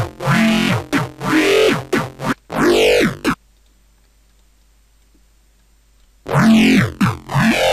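Dubstep 'vomp' bass patch from a Native Instruments Massive synthesizer, played as a run of short growling notes with a vowel-like sweep, several of them bending down in pitch at the end. It stops a little over three seconds in, leaves about three seconds of near silence, then starts again.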